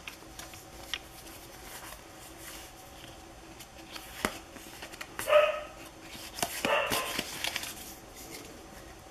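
Pokémon trading cards being handled and fanned, with faint taps and rustles. About five seconds in a dog barks sharply, then barks a few more times around seven seconds in.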